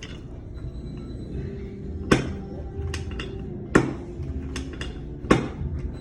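Sharp clicks from chiropractic extremity adjustments: three loud ones about a second and a half apart, with fainter clicks between, over background music.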